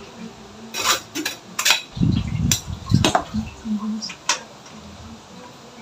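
A stainless steel mesh strainer knocked against a mixing bowl to empty out drained fruit, along with a metal spoon clinking in the bowl: a run of sharp clicks, then several dull knocks about two seconds in.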